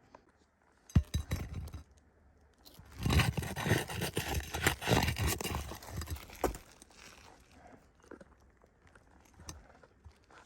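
Asphalt roof shingle being worked loose by hand and tool: a dense stretch of crunching, crackling and scraping of the gritty shingle surface, ending in a sharp knock, then a few light clicks.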